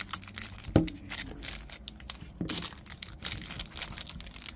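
Thin clear plastic wrap crinkling and tearing as it is cut and pulled off small tubes of polygel, with a sharp click about a second in and a softer one about two and a half seconds in.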